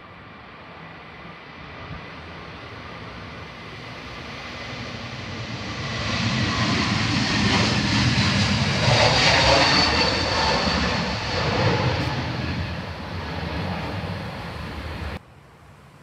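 Wizz Air Airbus A320-family twin-jet on its take-off roll, engines at take-off power, growing louder as it accelerates past with a high whine that drops slightly in pitch. The sound cuts off suddenly near the end.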